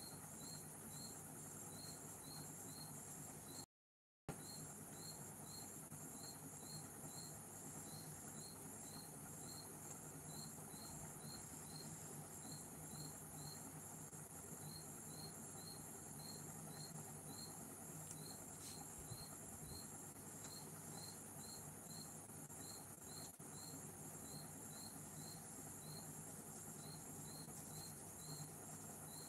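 Faint insect chirping: short high chirps about twice a second, in runs with short pauses, over a low steady hum. The sound cuts out completely for about half a second around four seconds in.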